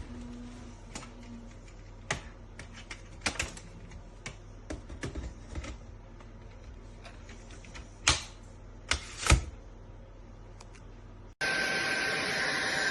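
Scattered clicks and knocks. Near the end, the SunSare X7A cordless stick vacuum's motor switches on abruptly and runs with a steady high whine.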